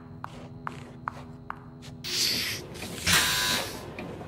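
Cartoon sound effects: light ticks about twice a second over a low steady hum, then two loud hissing whooshes, the second one louder and longer.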